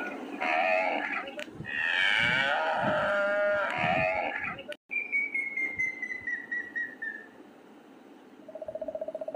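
Cattle mooing: several drawn-out calls over the first half. It cuts off abruptly, followed by a single falling whistle-like call and, near the end, a rapid pulsing sound.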